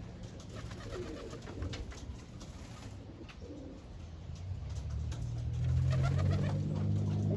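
Domestic pigeons cooing, with a low steady hum that grows louder in the second half.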